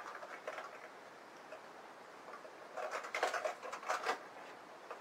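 Light plastic clicks and rattles of a Hornby model train car being handled and set down onto the track, with a quick run of them about three seconds in.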